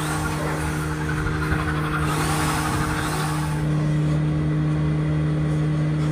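Belt-driven wood lathe's electric motor running steadily with a constant hum, the wooden hotpot body spinning on it. For the first three seconds or so a rasping hiss comes from hands working against the spinning wood, then it falls away and only the motor hum is left.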